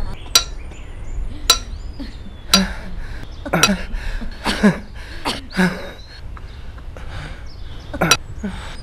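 A series of sharp clinks, about one a second, with a pause of a couple of seconds past the middle, and birds chirping faintly.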